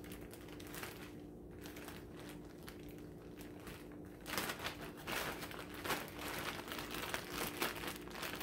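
Clear plastic bag of baby carrots crinkling and rustling as it is handled, with the rustling louder and busier from about halfway through. A faint steady hum lies underneath.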